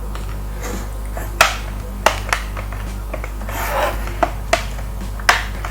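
A Lenovo ThinkPad T470 laptop's plastic cover is pressed into place, and its clips snap in with about six sharp, irregular clicks.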